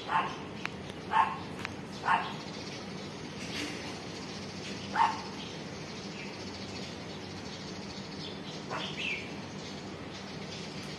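A dog barking: four short barks in the first five seconds, the first three about a second apart, then a fainter call near the end.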